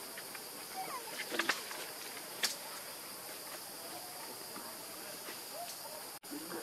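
Steady high-pitched insect chorus with a few faint short calls and a sharp click about two and a half seconds in; the sound drops out for an instant near the end.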